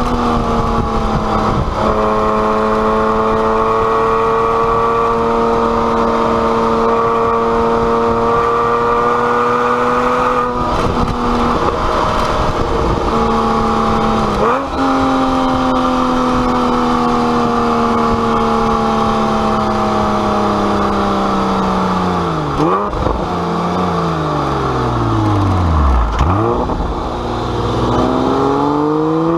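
Porsche 911 Carrera S flat-six engine with an aftermarket exhaust, driving at a mostly steady pitch. Twice midway the note breaks briefly and picks up again. Near the end the engine note falls steeply as it slows, then rises again as it accelerates.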